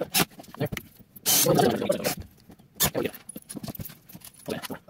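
A cordless Makita drill driving a screw into plywood for under a second, about a second in, amid short clicks and light metal clatter of loose screws being handled.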